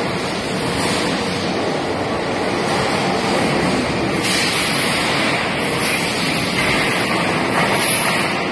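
Diapem 15-tonne electric overhead crane running with a steel coil on its hook, giving a steady, even rushing noise.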